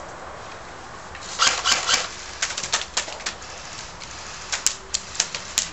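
Airsoft guns firing: a quick burst of sharp snapping shots about a second in, then scattered single shots and short volleys through the rest.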